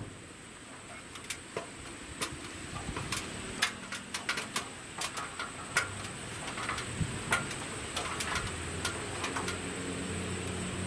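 Irregular clicks and clanks of sheet metal as a crimped stovepipe vent cap section is pushed and worked into the chimney pipe, which is a tight fit. A low steady hum comes in during the second half.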